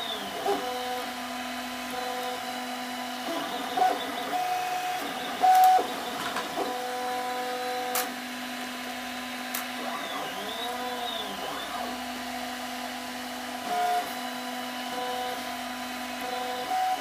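FDM 3D printer at work: its stepper motors whine in steady tones that jump to a new pitch with each move, with rising-and-falling swoops about ten seconds in, over a steady hiss from the print-head cooling fan. A sharp click comes about eight seconds in.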